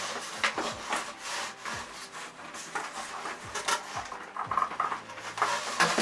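Cardboard box and its packing scraping and rustling as the mini fridge is grabbed and tugged at inside it: a string of irregular scrapes and knocks.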